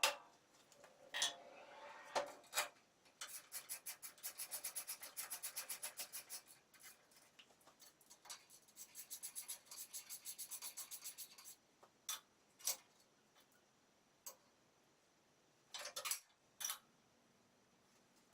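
Socket ratchet wrench turning bolts, heard as two runs of fast, even clicking several seconds long, with a few single knocks of metal tools between them. The bolts hold down the jointer/planer table top.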